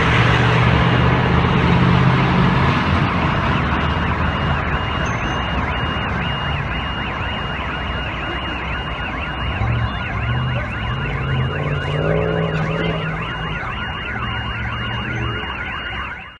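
A car alarm wails in a fast repeating cycle, about two to three a second, starting about four seconds in. It runs over the low drone of a heavy armored vehicle's engine, and everything cuts off suddenly at the end.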